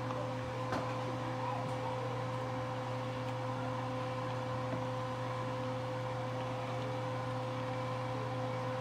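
A steady machine hum with a constant mid-pitched tone, under the stirring of cooked cassava leaves with a wooden spoon in a steel pot; a single faint knock about a second in.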